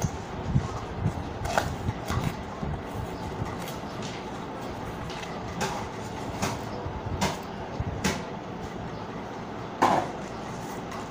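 Paper-covered cardboard gift box being opened by hand: paper and card rustling and scraping, with several sharp clicks and knocks, the loudest about ten seconds in.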